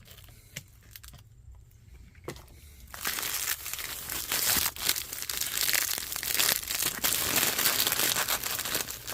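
Plastic wrapping crinkling as a new cartridge oil filter is unpacked. A few light clicks come first, then steady crackling starts about three seconds in.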